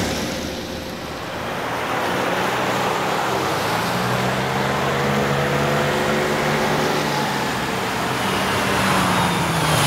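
A BMW sedan driving fast, with its engine and tyre noise. The engine note climbs slightly, then falls away near the end.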